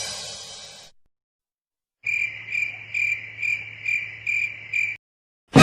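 The classic 'crickets chirping' sound effect: a cricket chirping in an even rhythm, about seven chirps, a bit over two a second, after a short silence. In the first second the tail of the previous effect fades out.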